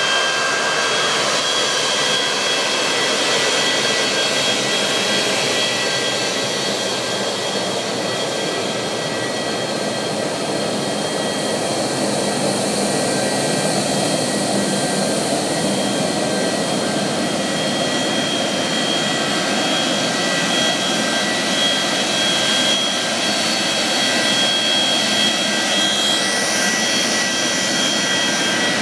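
Boeing 737-200's Pratt & Whitney JT8D jet engines running at idle: a steady turbine whine with several high tones over a rushing noise, one tone rising briefly near the end.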